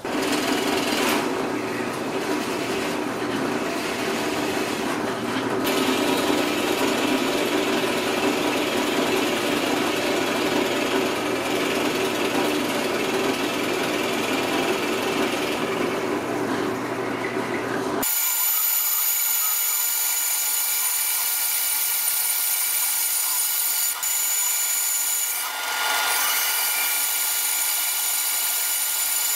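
Drill press boring into a wooden block, the motor and bit running steadily as it cuts. About eighteen seconds in, this gives way abruptly to a bandsaw running with a steady high whine as it cuts a curved piece of wood.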